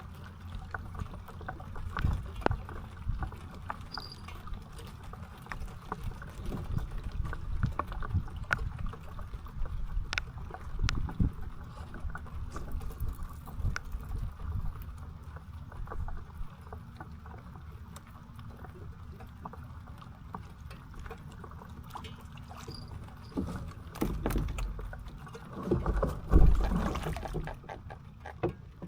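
Water sloshing and splashing around a raft, with many scattered small knocks and low thuds; a louder run of splashes and thuds comes near the end.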